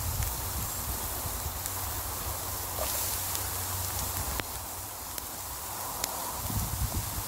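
Twigs burning in a small folding wood stove, giving a few sparse sharp crackles over a steady hiss of onions and peppers frying in oil in the pan, with a low rumble underneath.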